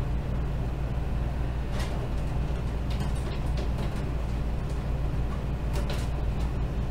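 A steady low hum with a few light clicks and taps from a screwdriver and screws working against the metal computer case while a power supply is screwed in.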